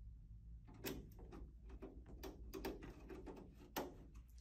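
Screwdriver driving the lid screws back into the rear of a metal desktop DVR case: an irregular run of small metal clicks and scrapes, starting about a second in.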